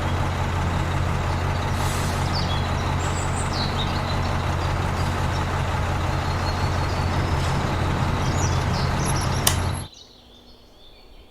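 A steady engine-like running noise with a low hum, starting abruptly and cutting off suddenly near the end.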